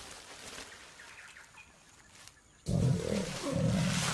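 Jaguars snarling and growling in an aggressive courtship clash between a male and a female. After a quiet stretch, a loud, low growl starts suddenly about two-thirds of the way through.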